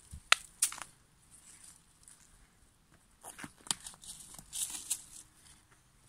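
A leafy plant on a roadside bank being pulled and handled: two sharp snaps near the start, then crackling and rustling of leaves and stems about three to five seconds in. The plant holds firm against the tugging.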